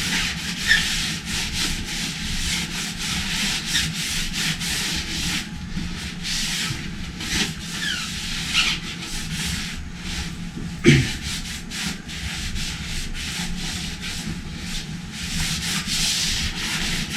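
Repeated rubbing and scrubbing strokes of a surface being cleaned by hand on a motorcycle wheel, with one sharp knock about eleven seconds in.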